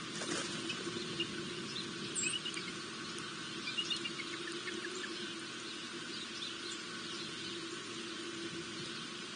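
A few brief, high bird chirps at a bird feeder, bunched about two to four seconds in, over a steady background hum.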